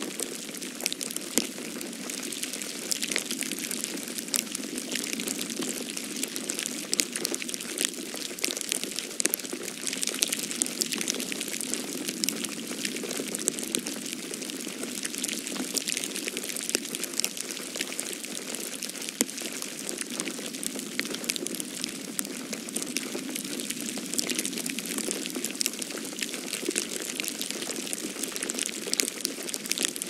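Falling snow pattering steadily: a dense, even hiss made of many fine ticks.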